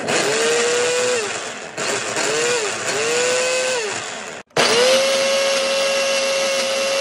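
Electric countertop blender whirring through an egg-and-oil mixture to make mayonnaise. The motor runs in three short bursts, its whine rising at each start and falling at each stop. It cuts out briefly about four and a half seconds in, then runs steadily.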